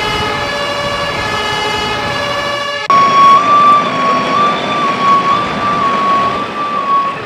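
Emergency-vehicle two-tone siren (German Martinshorn), its pitch alternating back and forth between two notes. About three seconds in there is a sudden cut, and after it the siren is louder.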